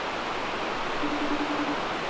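Steady hiss, with a short pulsing low tone about a second in: the ringing tone of an outgoing phone call heard through the phone's speaker, waiting for an answer.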